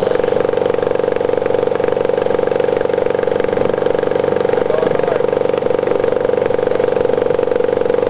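British Seagull single-cylinder two-stroke outboard motor running steadily at constant throttle, pushing a small boat upstream against a fast current.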